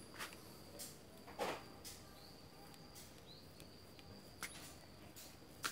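A few faint, separate clicks and taps as small metal parts of a sprayer's piston pump are handled during disassembly, the loudest about one and a half seconds in.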